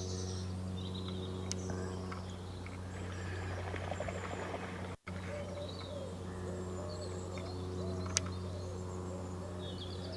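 Faint bird calls and chirps over a steady low hum, with a single sharp click about eight seconds in.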